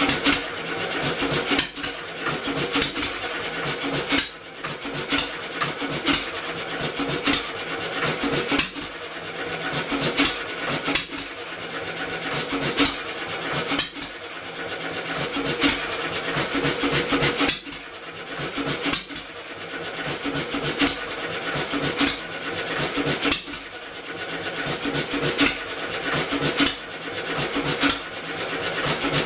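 Homemade double-expansion four-stroke engine converted from a two-cylinder air compressor, running on test with a rapid mechanical clatter over a steady hum. Its loudness swells and drops sharply every two to three seconds, as the engine fires but can't quite keep itself going.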